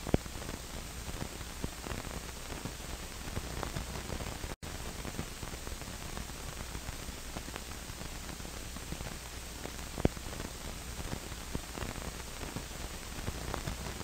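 Steady hiss with a low hum underneath and a few faint scattered clicks; a sharper click just after the start and another about ten seconds in, and a brief cutout to silence about four and a half seconds in.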